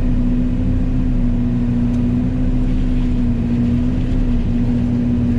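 Yanmar Vio80 excavator running a Fecon FMX36 forestry mulching head: a steady, loud machine drone with a constant hum that does not change.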